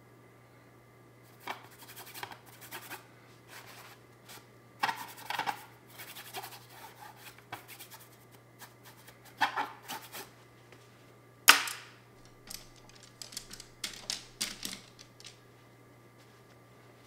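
Oil-painting brush working against the canvas and palette: a run of short, irregular scratchy strokes and taps, with one sharp click about eleven and a half seconds in, over a faint steady low hum.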